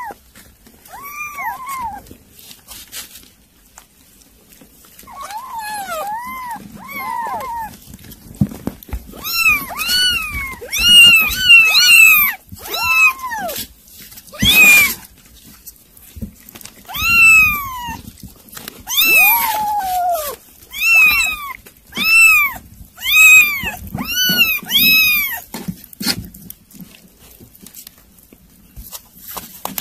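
Kittens mewing over and over, each high call rising then falling. A few come at first, then a run of loud mews about one a second, thinning out near the end.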